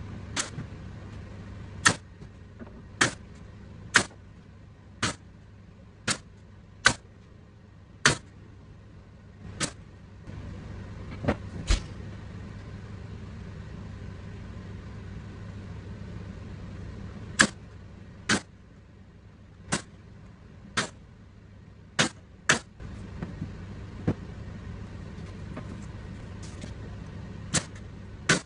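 A nail gun firing about twenty single shots, roughly one a second, with a pause of several seconds in the middle, as the pine edge strips are fastened to the panels. A steady low machine hum starts and stops twice beneath the shots.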